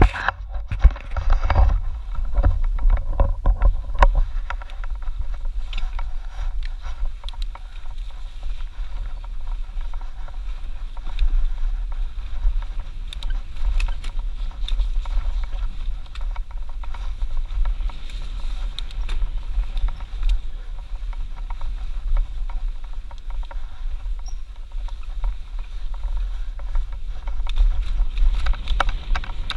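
Mountain bike ridden fast down a dirt forest singletrack, heard from a helmet-mounted camera: a steady low rumble of wind buffeting and tyre noise, with frequent clicks and rattles from the bike over bumps.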